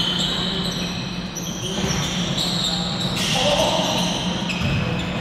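Basketball game in a gym: a ball bouncing and sneakers squeaking in many short high chirps on the tiled court, with players' voices echoing around the hall.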